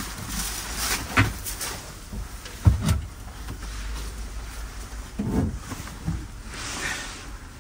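Knocks and clunks from a folding vehicle seat's metal frame being handled and fitted onto a plywood box, with scraping and handling noise between them. The sharpest knock comes about two and a half seconds in.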